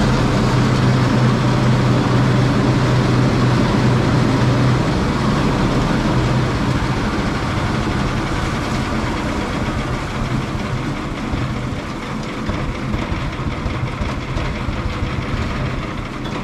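Gas-powered straw bedding chopper running, its small engine (which the owner thinks is an 8-horse Honda) driving the chopper through a double V-belt while it chops straw: a steady engine hum under a dense whirring rush. It gets a little quieter about five seconds in.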